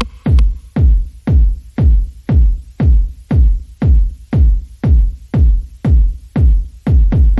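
Electronic dance music with a heavy, steady kick drum beating about twice a second.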